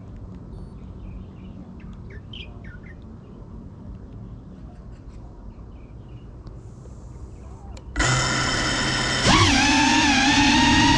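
Faint bird chirps over a low outdoor rumble. About eight seconds in, the brushless motors of a GEPRC CineLog35 ducted cinewhoop FPV drone start with a sudden loud whine. Its pitch rises a second later as the drone throttles up and lifts off, then holds steady.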